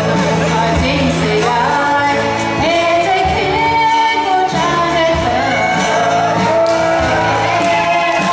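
A woman singing a melody with instrumental accompaniment.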